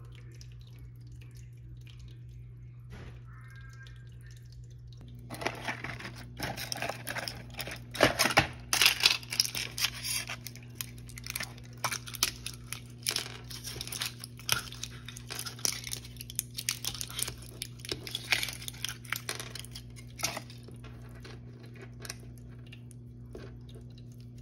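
Dense, irregular crinkling and crackling, as of packaging being handled or torn, starting about five seconds in and carrying on, over a steady low hum.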